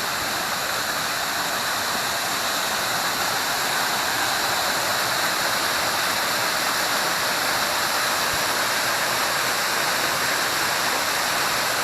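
Small waterfall rushing steadily, an even hiss of falling water.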